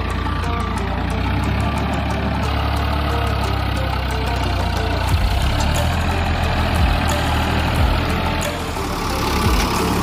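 Ford 3620 tractor's diesel engine running steadily under load while pulling a spring-tine cultivator through hard ground, with a few sharp knocks in the second half.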